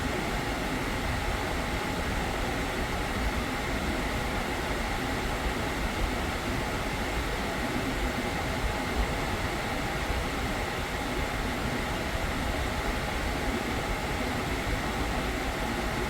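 Hyundai Porter II truck running steadily with its newly replaced air-conditioning compressor working: an even mechanical hum and hiss from the engine and AC fans, unchanging throughout.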